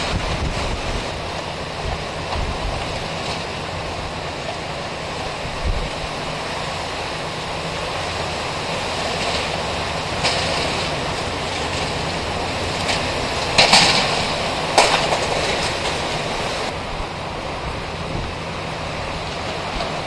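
Steady roar of tropical-storm wind, with two short, sharp bursts of noise a little past halfway.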